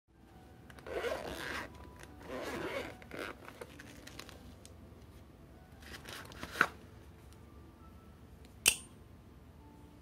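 Zipper of a small Vault Nano case pulled open in two rasping strokes, followed by handling rustles and two sharp metal clicks from the balisong knives, the second ringing briefly.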